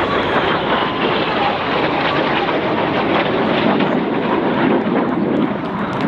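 Several BAE Hawk T1 jets flying a display pass, a loud, steady rush of jet engine noise from their Adour turbofans.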